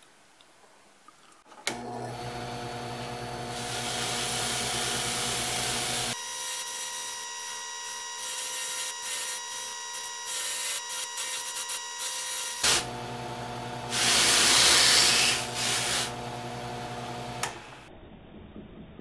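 A drill press motor starts about two seconds in and runs with a steady hum, a disc spinning in its chuck. A wooden workpiece is held to the disc, with a louder stretch of rubbing and scraping about three-quarters of the way through, and the motor noise falls away near the end.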